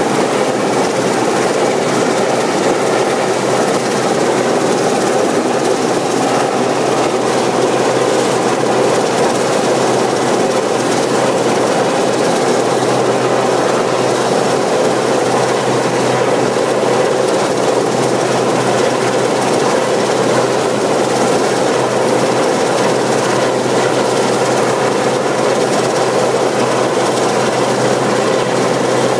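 RAF Westland Sea King search-and-rescue helicopter hovering close overhead: a loud, steady noise of its rotors and turbine engines.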